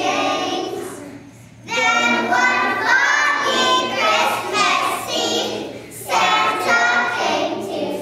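A group of young children singing together, with a short break about a second in before the next phrase starts.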